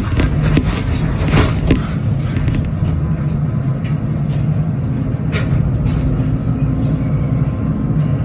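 Excavator's diesel engine running steadily, with a few sharp knocks and clatters over it, two close together about a second and a half in and another about five seconds in.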